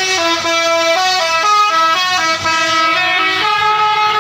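Bus telolet horn, a Basuri-type multi-trumpet musical air horn, playing a quick, loud melody of stepped notes, each held a fraction of a second.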